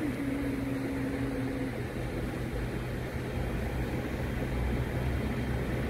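A person humming a tune, a few held notes that stop just under two seconds in, over a steady low rumble that carries on afterwards.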